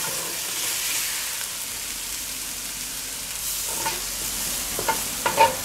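Chopped vegetables sizzling and frying in a cast-iron Dutch oven while a spoon stirs them. From a little past halfway the spoon scrapes and knocks against the pot several times, with the loudest clinks near the end.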